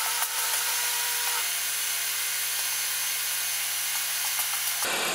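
Electric garage door opener running as the sectional overhead door rolls up, a steady motor hum with a higher whine, one tone of which drops out about a second and a half in.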